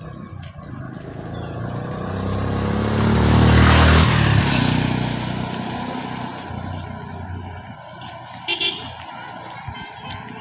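A motor vehicle drives past on the road. Its engine and tyre noise swell to a peak about four seconds in and then fade, with the pitch dropping as it goes by. A short horn toot comes near the end.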